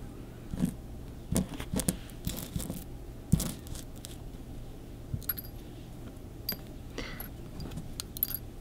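Small fossilized shark teeth clicking and clinking softly as they are picked through by hand, in scattered irregular taps, a few with a brief high ring.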